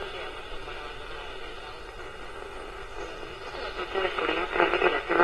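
Hengxing pocket AM radio's small speaker giving out hiss and static with a weak station underneath. About four seconds in, a broadcast voice comes in louder and clearer.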